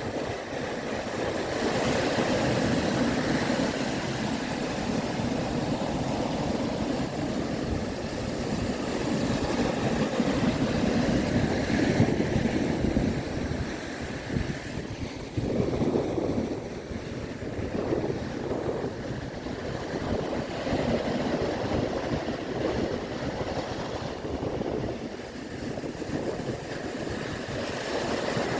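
Sea waves surging and washing in, a continuous rush that swells and eases over several seconds, with wind buffeting the microphone.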